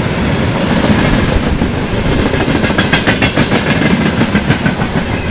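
Freight train wagons, tank cars and covered hoppers, rolling past close by in a steady loud rumble. From about halfway through there is a rapid run of wheel clacks over the track.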